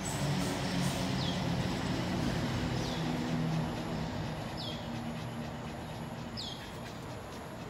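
Low engine hum of a passing vehicle, swelling in the first seconds and fading away after about six. Over it a bird repeats a short, falling whistle about every two seconds, five times in all.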